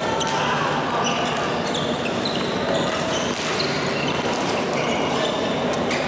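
Badminton doubles rally in a busy multi-court hall: sharp racket hits on the shuttlecock and short shoe squeaks on the court floor, over a steady din of other games and voices.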